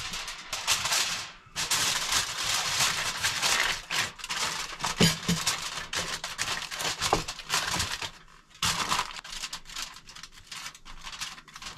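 Aluminium foil crinkling and crackling as a sheet is laid over a baking pan and crimped down around its edges. The rustling is dense for about eight seconds, then thins to scattered small crinkles.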